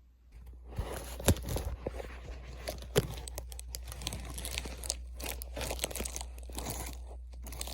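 Fabric rustling, scratching and tearing inside a couch where a hole has been torn in the lining, with scattered sharp clicks, two of them stronger in the first few seconds, over a steady low hum.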